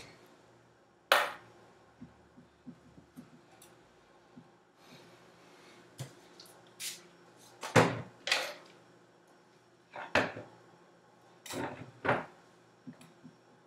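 Irregular handling noises from hair styling on a mannequin head: scattered clicks and knocks with short brushing sweeps, the loudest about a second in and in a cluster near the middle and end.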